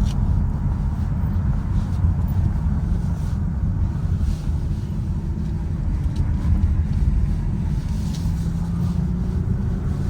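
Car driving: a steady low rumble of engine and road noise, with a faint tone that rises slowly in the second half.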